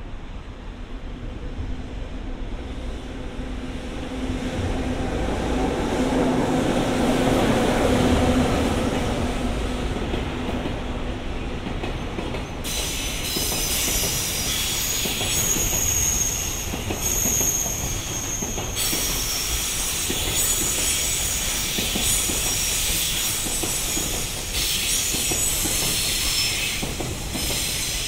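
Freight train passing on the rails. Its locomotive's steady hum builds over the first several seconds. From about halfway through, the wagons' wheels squeal high-pitched on the rails.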